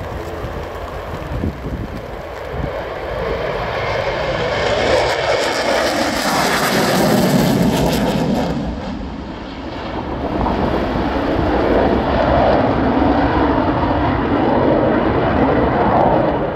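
F/A-18C Hornet's twin F404 turbofan jet engines, a loud jet noise. It swells to its hardest and most hissing about five to eight seconds in as the jet turns overhead, then eases to a lower, steadier rumble as it flies off.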